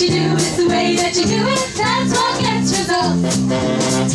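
Upbeat jazz show tune played by a band, with held, stepped chords and some singing.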